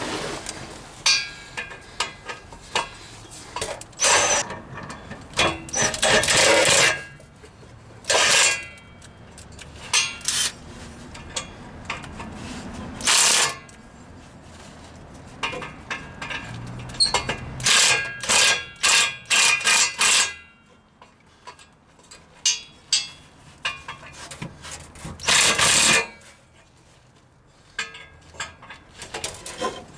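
Hand tools working on a 2006 Toyota Corolla's exhaust pipe from underneath: metal clinks, knocks and scraping, in repeated short bursts about a second long, quieter in the last third apart from one more burst.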